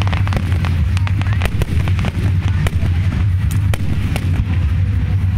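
Aerial fireworks shells bursting in quick succession: a rapid run of sharp bangs and crackles, several a second, over a steady low rumble.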